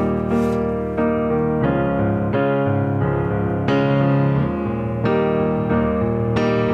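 Background piano music, a new note or chord struck roughly every two-thirds of a second.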